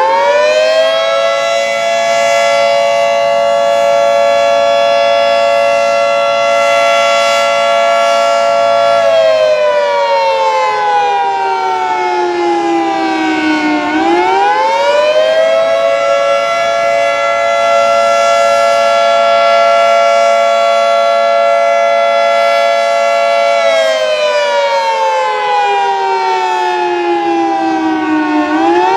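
Fire station's general fire siren sounding, not the tornado warning signal. It winds up quickly, holds a steady wail for about nine seconds, then winds down slowly. It does this twice, and starts winding up again near the end.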